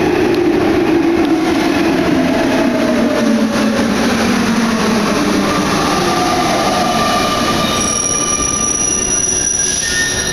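Paris Métro MP89CA rubber-tyred train running, heard from inside the car: the traction motor whine falls in pitch over the first few seconds as the train slows. Several steady high-pitched whistling tones come in near the end.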